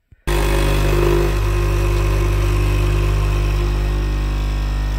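Espresso machine's pump buzzing steadily and loudly while coffee pours into a mug. The buzz starts abruptly just after the beginning.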